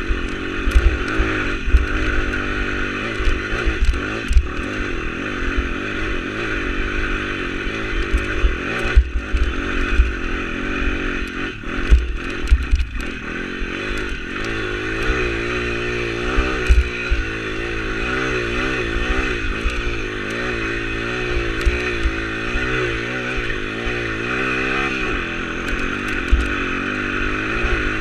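140 cc YX pit bike engine, a four-stroke single, running under load, its pitch rising and falling with the throttle. Frequent low thumps and rattles as the bike bounces over rough, rocky ground.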